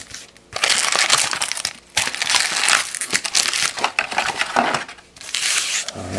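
Foil wrappers of 2018 Topps Chrome baseball card packs crinkling as the packs are handled and stacked, in several bursts with short pauses between them.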